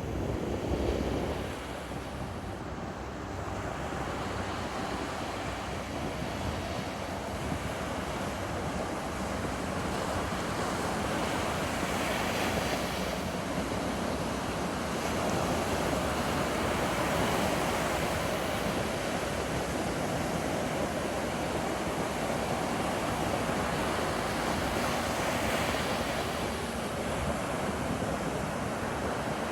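Ocean surf washing steadily onto a sandy beach, with a few waves breaking a little louder. Wind buffets the microphone.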